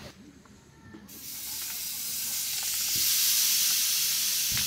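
Marinated webfoot octopus (jjukkumi) sizzling in a hot pan: a hiss that starts about a second in and grows louder, then holds steady.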